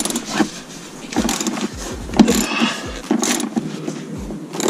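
Socket ratchet on an extension bar working a rear seat bolt loose: irregular clicks and knocks of the ratchet and socket, several a second.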